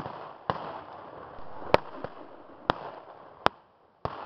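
Scattered rifle fire with blank cartridges from a reenactors' firing line: about six single sharp shots at uneven intervals, each followed by a short echo.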